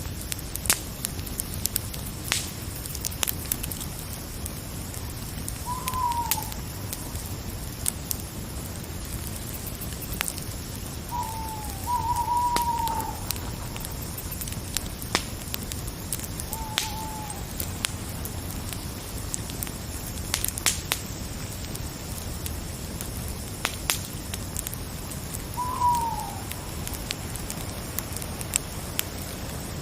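A crackling fire with sharp pops scattered irregularly over a steady low hiss. An owl hoots about five times, each call short and falling in pitch, with two close together near the middle.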